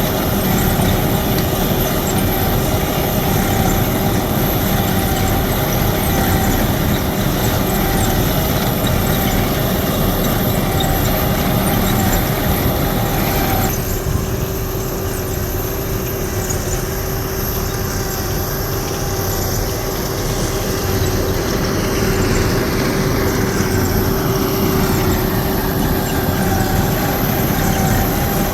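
Buckeye 7200 wheel ditching machine running steadily while it digs a trench and lays drainage tile: a continuous engine drone with a steady whine over it. About halfway through, the hissing upper part of the sound suddenly drops away and the machine noise gets a little quieter.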